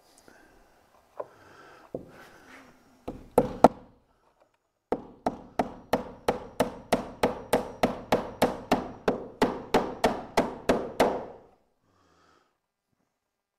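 Claw hammer driving nails to fasten an electrical box to a wooden wall stud. A few separate taps come first, then a steady run of about two dozen quick blows, about four a second, that then stops.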